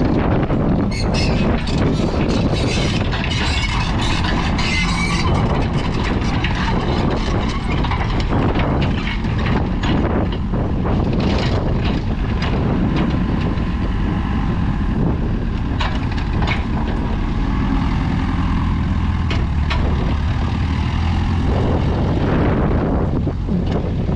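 JCB 8056 midi excavator's diesel engine running steadily, with frequent short clanks and knocks from the machine.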